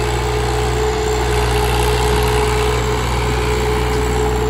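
Swaraj 744 XT tractor's three-cylinder diesel engine running loud and steady under heavy load, pulling a trolley loaded with soil up a ramp.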